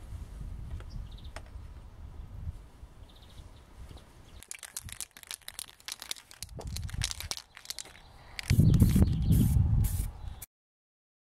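Outdoor sound: a low rumble, faint bird chirps, and a run of light clicks and knocks from about four to eight seconds in as a steel ATV wheel hub is handled and set down on a wooden stump. Near the end a louder low rumble lasts about two seconds, then the sound cuts off.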